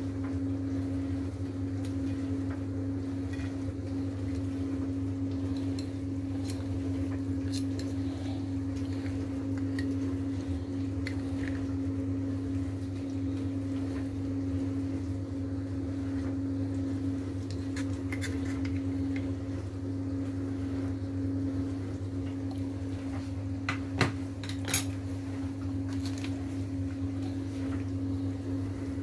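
Metal fork clinking and scraping in an open sardine tin and against a plate, in light scattered clicks, with two sharper clicks close together near the end. A steady low hum runs underneath.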